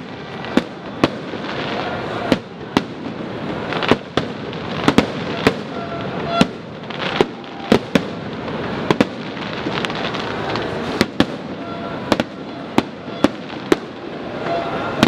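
Aerial firework shells bursting in a fireworks display: sharp, loud bangs at irregular intervals, a little more than one a second, over a continuous noisy wash.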